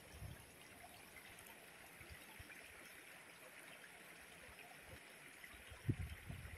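Faint, steady running water of a shallow rocky stream. Near the end, a wooden spatula starts scraping soft butter across a slice of white bread.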